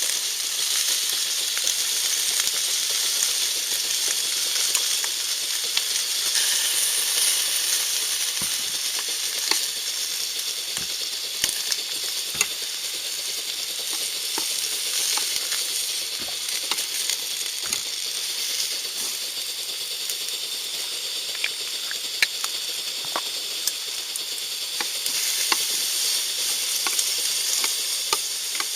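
Food frying in a pan: a steady sizzle with scattered sharp pops.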